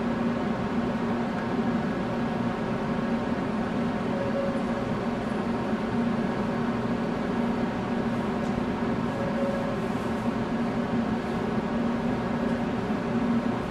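Steady hum of a Shinkansen train standing at the platform with its on-board equipment running, after the doors have closed for departure. A fainter higher tone comes and goes every few seconds.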